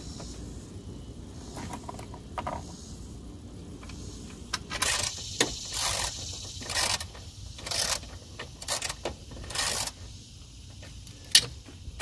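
Hand work under a car's dashboard: a run of about six short rattling, scraping bursts of tool and trim parts over some five seconds, then a sharp click near the end.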